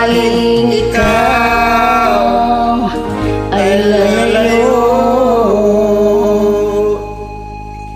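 Closing bars of a love ballad: long held sung notes that waver, over the accompaniment. The music drops in level about seven seconds in and fades out at the end.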